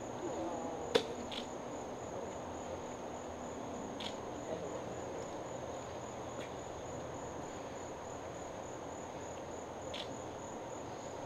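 Insects singing in a steady, high-pitched, faintly pulsing trill, with a few short clicks, the sharpest about a second in and others around four seconds and near the end.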